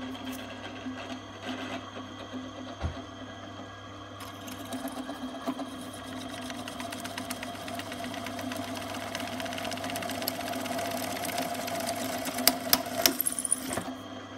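Pillar drill running, its twist bit cutting through steel box section over a steady motor hum. The cutting noise builds from about four seconds in, with a few sharp clicks near the end before it drops away.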